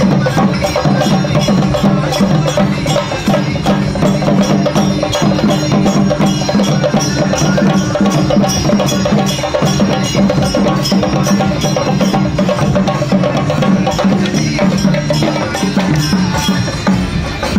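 A group of chenda drums, Kerala cylindrical drums, beaten fast with sticks in a dense, unbroken stream of strokes, loud and steady throughout.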